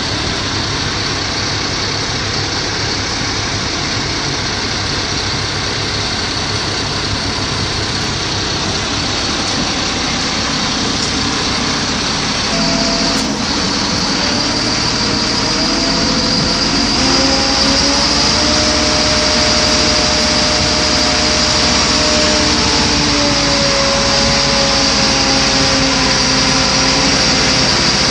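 Tadano mobile crane's diesel engine and hydraulics running steadily; a little under halfway through the engine picks up and a steady whine comes in as the crane hoists a precast concrete load.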